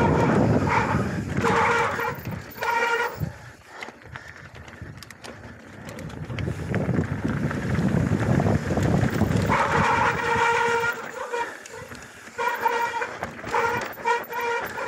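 Mountain bike rear freehub buzzing in stretches as the bike coasts downhill, a steady high buzz that stops and starts, over the rumble of tyres on a dusty dirt trail and wind on the microphone.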